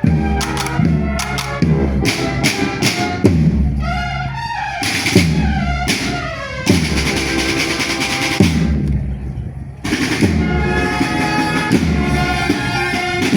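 Music with brass and a steady drum beat.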